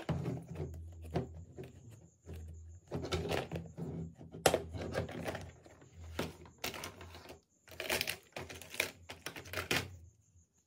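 Hard plastic toy case being handled and opened: a run of plastic clicks, clacks and rattles as the lid, latch and small plastic toys inside are moved, with one sharp click about halfway through.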